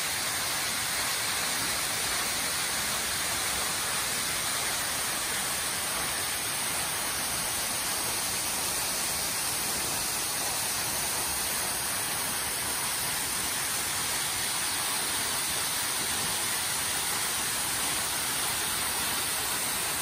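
Small waterfall pouring down a rock face into a pool: a steady, even rush of falling water.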